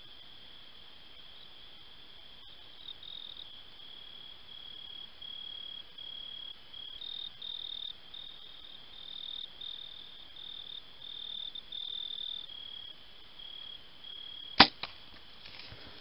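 Insects trill steadily in a pulsing high chirr. About two and a half seconds before the end, a compound bow is shot: one sharp crack of the string and limbs on release, the loudest sound, followed by a fainter click.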